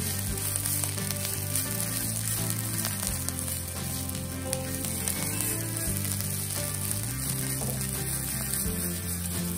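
Chopped sweet leaf (cekur manis) and aromatics sizzling steadily in a nonstick pan as they are stir-fried and tossed with a spatula, the leaves wilting down. Soft background music with held low notes runs underneath.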